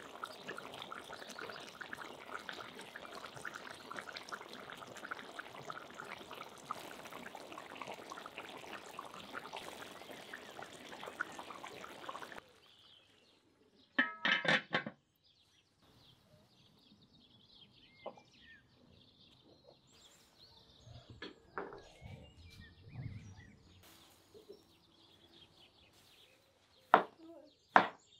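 Rice and broth bubbling and crackling steadily in a cast-iron kazan of plov. It cuts off about halfway through, and a cast-iron lid goes onto the pot with a short, ringing metal clatter. Near the end come a few sharp knife chops on a wooden cutting board.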